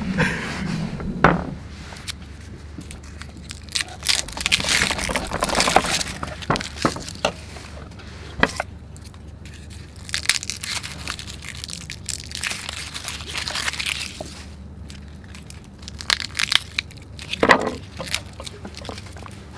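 Hands preparing food on wooden cutting boards: a bunch of shimeji mushrooms pulled apart, then ginger peeled with a small knife, heard as several short bursts of crackling and scraping with quieter pauses between.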